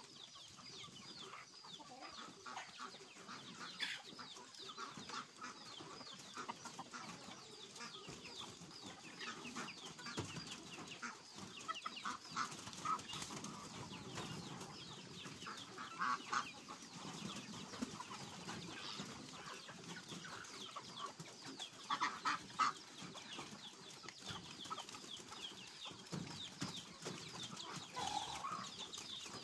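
A flock of domestic chickens clucking and calling while they feed, with scattered short ticks and knocks.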